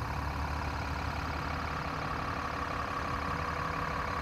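A motor idling with a steady, unchanging hum.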